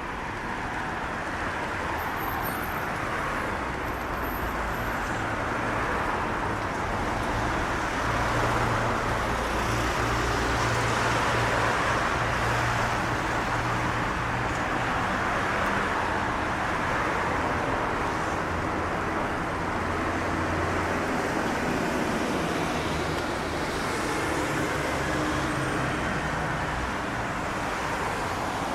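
Steady road traffic noise, with a vehicle engine's low hum that builds a few seconds in and fades out after about twenty seconds.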